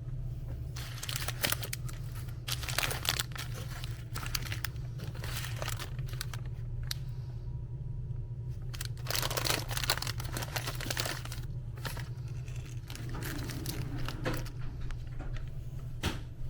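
Plastic sweet wrappers and a treat bag crinkling and rustling on and off as the sweets are handled, over a steady low hum.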